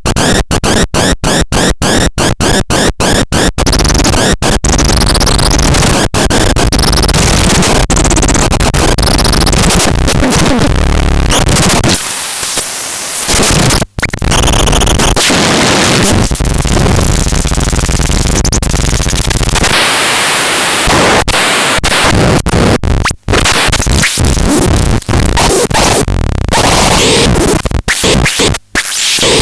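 Loud harsh electronic noise: a dense wall of distorted static filling every pitch. It is rapidly chopped on and off for the first few seconds, then runs on continuously with shifting textures and a few sudden brief cut-outs.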